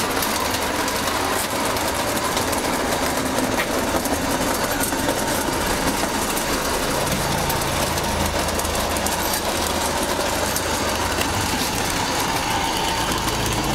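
O gauge model train running steadily along its track: a continuous whirr from the locomotive with the rattle of its wheels on the rails.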